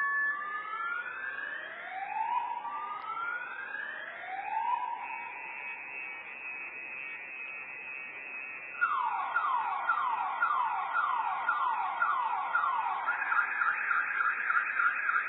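A car alarm heard from a distance, cycling through its tone patterns. First come slow rising whoops, then a faint steady tone, then a run of falling sweeps at about two a second, and near the end a faster, higher warble.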